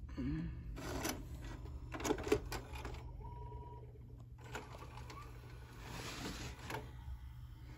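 Samsung DVD/VCR combo's tape transport taking in a VHS cassette, with clicks and clattering as the cassette is drawn in and threaded to play. A brief steady tone sounds a little past the middle.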